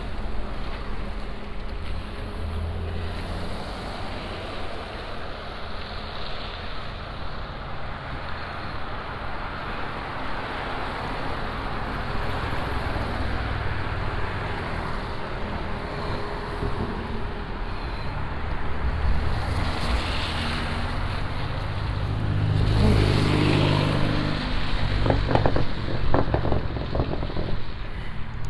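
Road traffic on a snow-covered street: vehicles driving past with a steady hiss of tyres on the snowy road and a low engine rumble, a louder vehicle passing a little over twenty seconds in, followed by a few short knocks.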